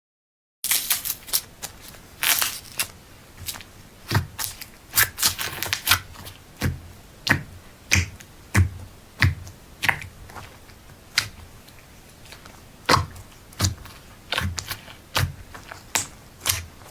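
Slime being squeezed and poked by hand, giving a run of short, sharp wet pops and clicks, roughly one or two a second, that begin about half a second in.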